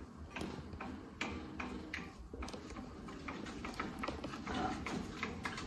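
Mustard seeds popping and crackling in hot oil for a tempering, irregular sharp pops a few times a second over a low sizzle.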